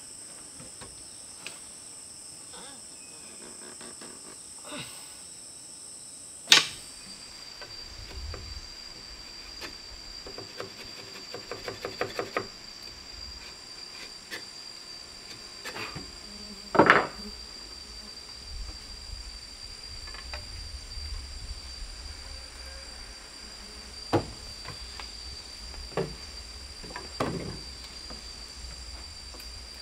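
Insects keep up a steady high-pitched buzz. It is broken by a handful of sharp knocks, the loudest about a quarter of the way in and just past halfway, with a quick rattle of clicks in between.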